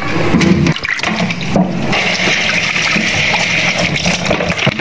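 Kitchen spray-head tap running water onto leafy greens in a plastic colander at a sink, the water splashing over the vegetables. The flow gets louder and steadier about two seconds in.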